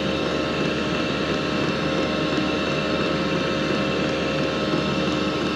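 A 2 kW diesel air heater running steadily at full output: an even hum from its fan and burner with a few fixed tones, no change in speed.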